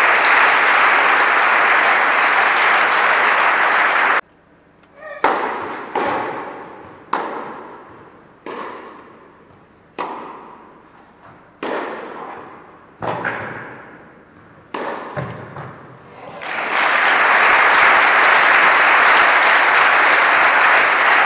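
Spectators applauding in an indoor tennis hall, cut off suddenly; then a tennis rally: about nine sharp racket-on-ball hits roughly every second or second and a half, each echoing briefly in the hall. Applause swells again near the end as the point is won.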